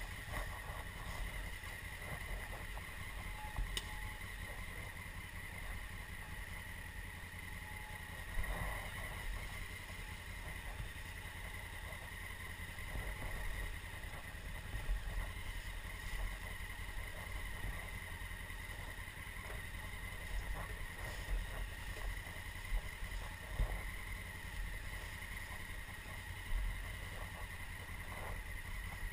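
2016 Honda Africa Twin's parallel-twin engine running at low trail speed, heard muffled through a helmet-mounted camera, with a few brief knocks as the bike goes over bumps.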